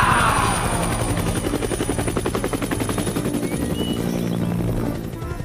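Cartoon helicopter sound effect: a rapid, even rotor chop over a steady engine drone, with a falling swoop just as it starts.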